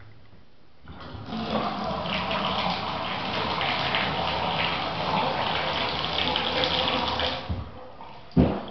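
Water running from a faucet into a sink for about six seconds, then shut off. A single thump near the end.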